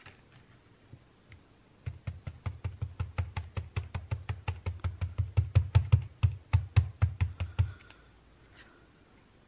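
Foam sponge dauber dabbed rapidly through a plastic stencil onto a paper journal page: a run of soft, dull taps, about six a second, lasting about six seconds from about two seconds in.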